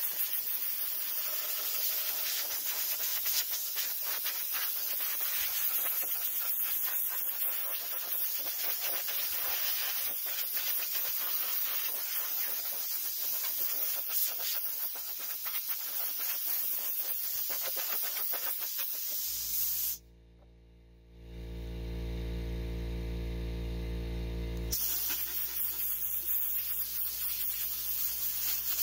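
Compressed-air blow gun hissing steadily as it blows dust off 3D-printed costume pieces before painting. About twenty seconds in the air stops for a few seconds, a low hum is heard, and then the hissing starts again.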